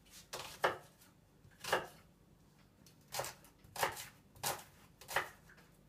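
Kitchen knife dicing the white part of an onion on a wooden cutting board: about seven separate cuts, each a sharp knock of the blade through onto the board, unevenly spaced with a pause of over a second in the middle.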